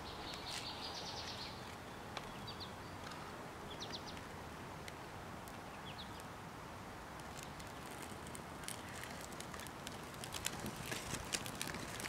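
Freshly lit birch bark tinder burning, quiet at first. From about two-thirds of the way in it crackles with more and more sharp little snaps as the flame takes hold. Faint bird chirps sound in the background early on.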